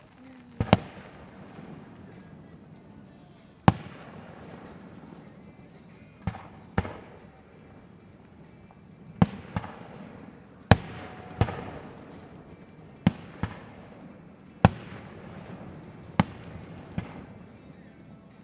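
Aerial fireworks shells bursting: a string of about fourteen sharp booms at uneven intervals, some in quick pairs, each trailing off in a rumbling echo.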